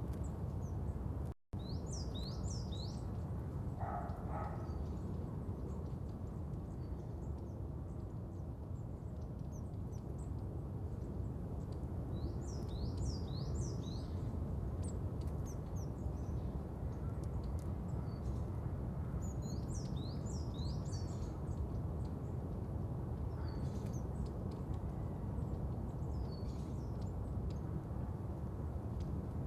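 Outdoor nature ambience: small birds chirping in short clusters of high, quick notes over a steady low background noise. The sound drops out completely for an instant about a second and a half in.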